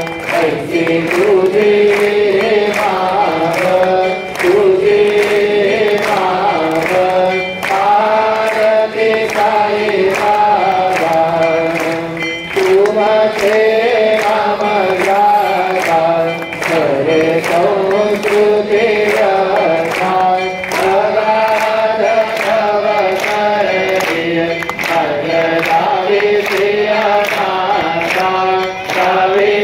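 Devotional group singing: voices chanting a hymn together over a steady beat of sharp percussive strikes about twice a second.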